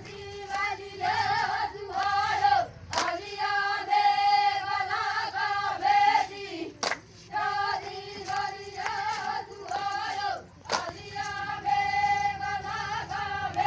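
A high voice singing a traditional Adivasi folk song in long, drawn-out phrases of held notes. A sharp click falls between phrases about three, seven and eleven seconds in.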